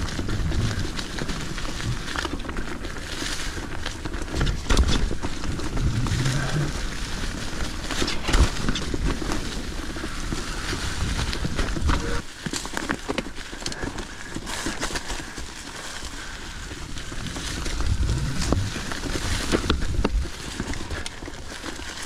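Mountain bike rolling along a trail thick with dry fallen leaves: the tyres crackle through the leaves, the bike knocks and rattles over the rough ground, and a low rumble runs underneath. It eases off somewhat around the middle and picks up again near the end.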